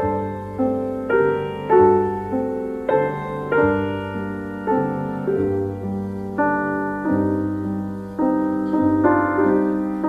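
Background piano music: slow, gentle chords, a new chord struck roughly every half second and left to ring and fade.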